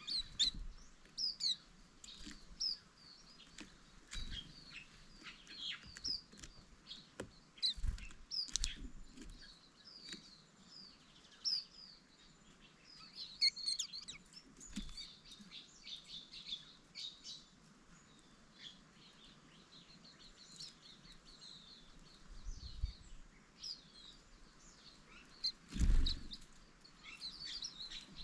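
Green-backed white-eyes chirping: many short, high twittering calls, with a few dull low thumps, the loudest near the end.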